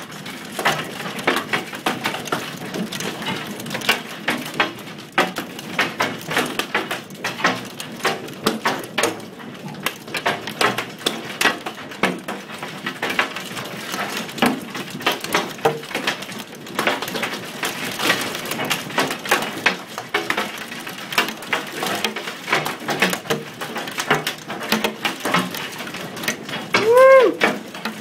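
Large hailstones pelting hard surfaces in a dense, continuous clatter of sharp impacts. Near the end comes one short cry that rises and falls in pitch.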